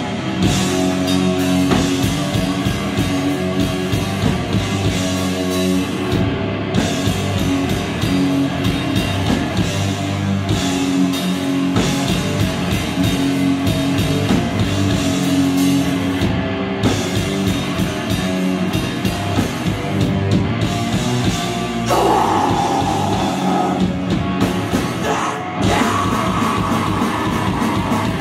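Live metal band playing loud: distorted electric guitars and fast, dense drumming, with a vocalist shouting in near the end.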